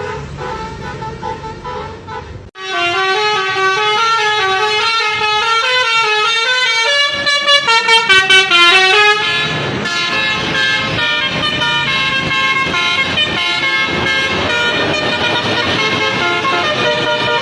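Bus 'telolet' musical air horn with roof-mounted trumpets playing a tune, the notes stepping up and down. About 2.5 seconds in the sound breaks off abruptly and resumes; about 9.5 seconds in several horn tones begin sounding together in a dense, sustained chord.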